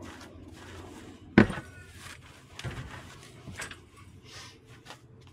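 Objects being handled and set down: one sharp knock with a short ring about a second and a half in, then a few lighter knocks.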